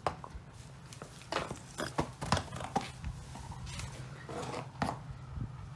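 A series of irregular short knocks and thumps over a steady low hum, with a faint brief pitched sound about four and a half seconds in.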